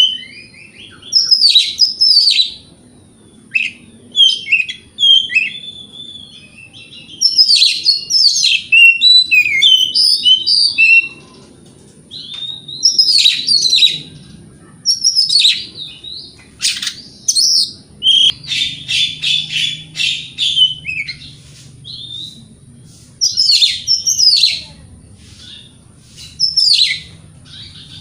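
Oriental magpie-robin (kacer) singing loudly in varied phrases of whistles, slurred notes and chatter, separated by short pauses. A little over halfway through, one stretch turns into a rapid buzzy trill.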